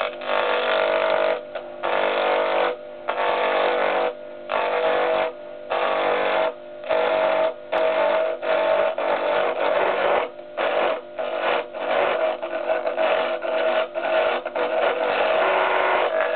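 Small wood lathe running with a steady motor whine while a turning tool cuts a spinning wood blank, the scraping coming in bursts of one to two seconds with short breaks as the tool is pressed on and eased off, the bursts growing shorter and more frequent about ten seconds in.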